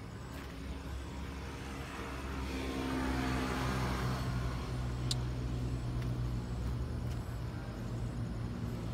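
A motor vehicle's engine running with a steady low hum. It grows louder from about two seconds in, with a rush of noise around the middle.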